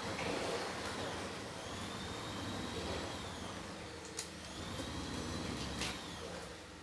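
Hand washing: a steady rushing, hissing noise, with two sharp clicks about four and six seconds in.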